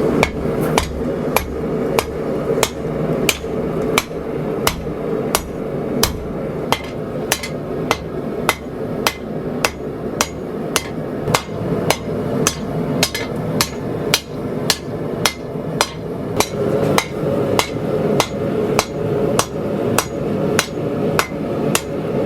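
Forging hammer striking hot 80CrV2 steel on an anvil in a steady rhythm of sharp, ringing blows about two a second, drawing the blade out for more length. A steady hum sits underneath.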